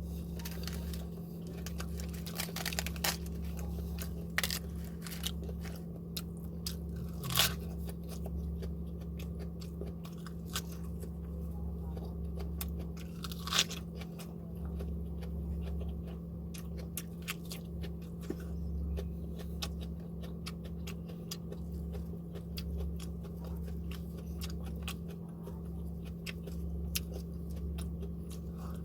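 Close-miked eating: chewing and crunching of food with many small wet mouth clicks, and two louder crunches about a third and halfway through. A steady low hum runs underneath.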